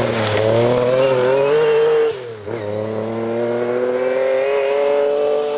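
Lancia Stratos rally car's Ferrari V6 engine running hard at high revs. About two seconds in the revs fall away sharply, then the engine pulls again with its pitch climbing steadily.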